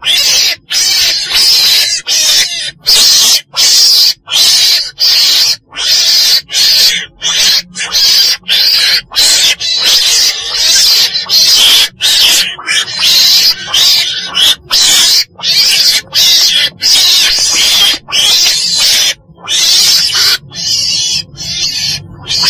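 Chồn đèn, a small wild carnivore given as a weasel (Mustela), calling: a long, rapid series of harsh, hissing calls separated by brief gaps.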